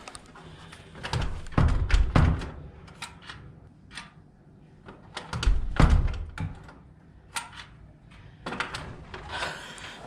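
Dull thumps and knocks with scattered sharp clicks, loudest about two seconds in and again about six seconds in.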